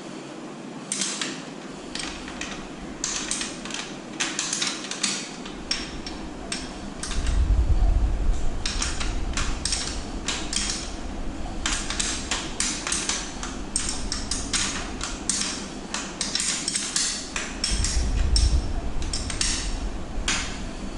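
Irregular metallic clicks and clinks of a hex key and other metal parts knocking against a mountain bike's rear derailleur and frame while it is adjusted by hand. Low rumbling bumps come in about seven seconds in and again near the end.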